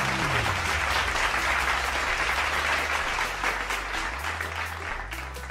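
Applause over steady background music, the clapping thinning out near the end.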